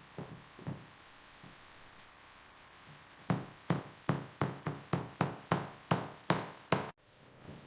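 A brief hiss about a second in, then a rapid run of about a dozen sharp knocks, roughly three a second, like hammer blows or taps on a hard surface, cut off suddenly near the end.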